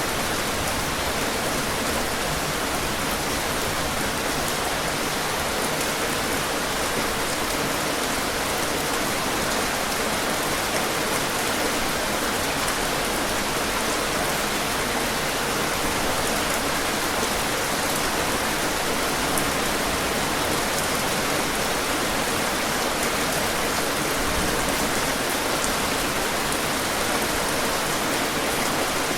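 Heavy rain falling steadily, a dense even hiss of many drops hitting surfaces.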